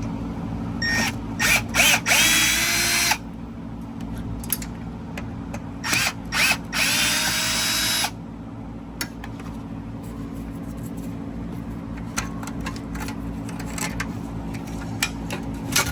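Cordless drill-driver backing out screws: two runs of a couple of seconds each, one about a second in and one about six seconds in, each with a motor whine, followed by a few light clicks. A steady low hum sits underneath.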